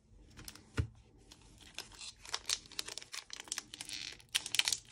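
Foil wrapper of a Pokémon TCG Shining Legends booster pack being torn open and crinkled by hand: a run of quick crackles that get busier toward the end, with one sharp knock about a second in.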